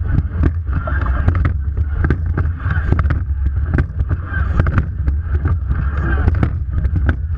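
Water rushing and splashing along the bow of a racing rowing eight, with heavy wind buffeting on the microphone. A surge of water noise comes back about every one and a half to two seconds, in time with the crew's strokes, over many sharp ticks of spray.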